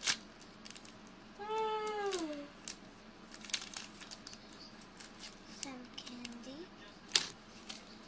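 A pet animal calls twice: a drawn-out call about a second and a half in that falls in pitch, then a lower, shorter one a few seconds later. Around it come the crinkles and clicks of a plastic candy package being handled, with one sharp click near the end.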